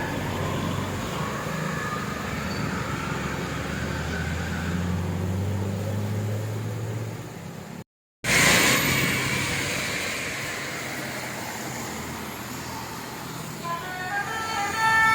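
Large bus engine running on the road, its low drone swelling for a few seconds, then breaking off for a moment about eight seconds in. Near the end a multi-note basuri (telolet) horn starts playing a tune of short stepped notes.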